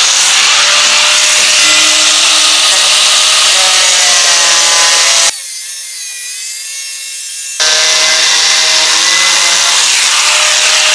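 Angle grinder with a cutting disc slicing through a Ferrari Testarossa's fender panel: a loud, steady high-pitched whine with a harsh cutting rasp. About five seconds in, the rasp drops away for roughly two seconds, leaving only the thinner whine of the disc, then the cut resumes.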